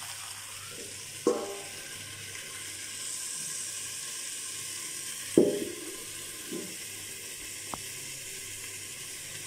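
An upturned steel bowl is set as a lid over chicken pieces on a tawa, giving a ringing metal clank about a second in and a louder clank about five seconds in. A steady faint sizzling hiss of food cooking on the low flame runs underneath.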